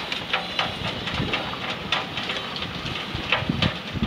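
Irregular small clicks and taps from hands handling gear on a boat, over a steady low rumble of wind on the microphone, with a few louder taps near the end.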